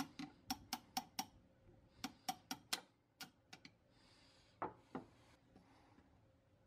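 Light hammer taps on a steel pin punch, about four a second, driving out a shotgun's trigger pin; the taps come in short runs for the first three and a half seconds, then give way to a brief metal scrape.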